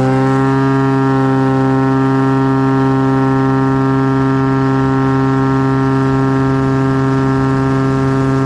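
Cessna 185 amphibian's piston engine and constant-speed propeller running at full take-off power during the take-off roll: a loud, steady drone held at one pitch.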